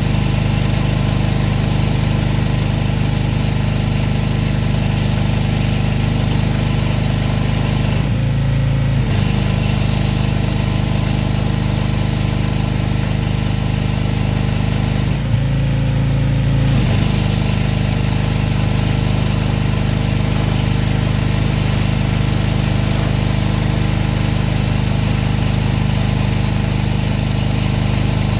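Gas-engine pressure washer running steadily with the spray hissing. Twice, about eight and fifteen seconds in, the hiss briefly cuts out and the engine note changes, as when the spray is stopped for a moment.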